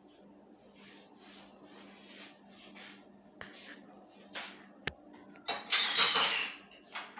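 Close rustling and scuffing from a hand handling the recording phone right at its microphone, with two sharp clicks in the middle and the loudest scraping burst about six seconds in, over a faint steady hum.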